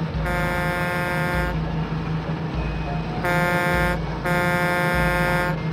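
Truck horn sound effect sounding in three buzzy blasts, a long one, a short one, then another long one, over a steady low engine rumble.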